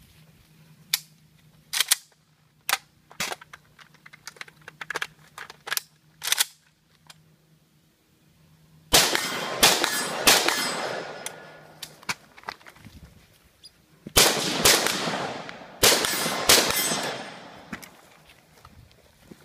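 Custom AK74 rifle in 5.45x39 with a Battle Comp muzzle brake firing semi-auto: three loud shots in quick succession, then after a pause four more, each followed by a long fading echo. Before them come a run of quieter sharp cracks.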